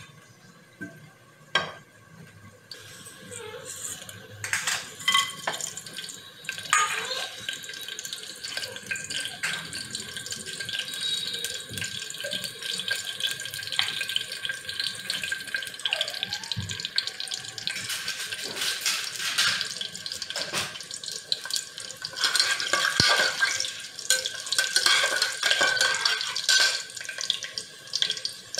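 Whole spices (bay leaves, peppercorns, cinnamon) sizzling and crackling in hot oil in a pressure cooker, a steady hiss with many small pops that grows louder about four seconds in.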